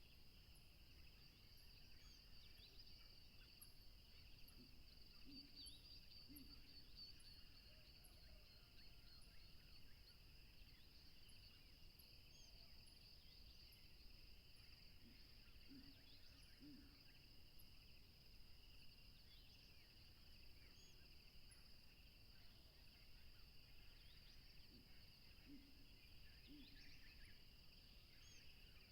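Faint birds chirping with many short, scattered calls over a steady, continuous insect drone. A low two-note call comes three times, about ten seconds apart.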